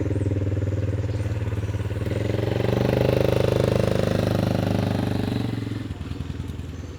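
A motorcycle engine running steadily with a fast, even pulse, fading away about six seconds in.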